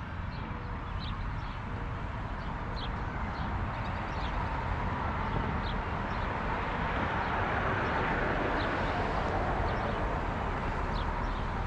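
Steady wind rushing over the microphone, a little louder in the second half, with short high bird chirps scattered throughout.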